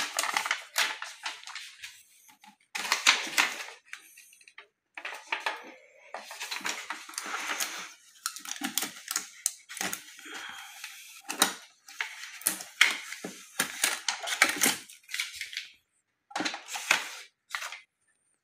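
Irregular rustling and crinkling of a paper sheet, mixed with light clicks and knocks of plastic printer panels being handled, in uneven bursts with short pauses.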